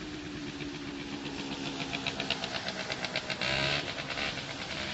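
A car driving on a flooded, rain-soaked street, its engine a steady hum that sinks slightly in pitch. Over it comes a fast run of ticks, about six a second, and a louder hiss of water about three and a half seconds in.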